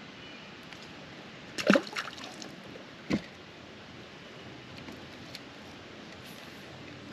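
River water trickling and sloshing against a small boat. Sharp knocks come just under two seconds in and about three seconds in, and the first is the loudest.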